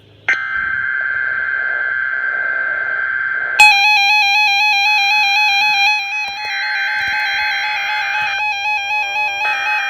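Electronic alert tones of a NOAA Weather Radio required weekly alarm test. A steady tone starts just after the beginning, and about three and a half seconds in a louder warbling alarm tone, flipping rapidly between two pitches, joins it.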